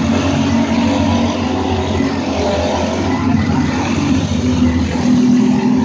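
Several racing go-kart engines running together as the field laps the track, a steady blend of buzzing engine tones that swells slightly near the end.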